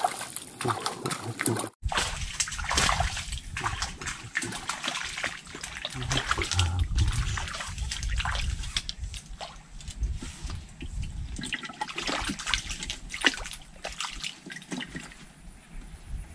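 Water splashing and sloshing in irregular bursts as a hooked striped snakehead thrashes at the surface of a pond.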